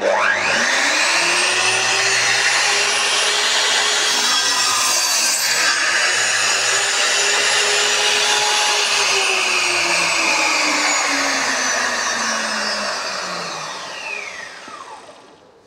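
Sliding compound miter saw starting with a rising whine and running at full speed while its blade cuts through a wooden board. It is then switched off, and the blade winds down with a falling whine over the last few seconds.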